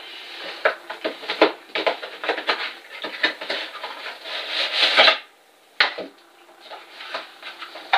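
Cardboard drone packaging being slid open and handled: the inner box scraping and rubbing against its sleeve, with scattered small knocks. The scraping stops abruptly about five seconds in, followed by a single click and fainter handling of the packaging tray.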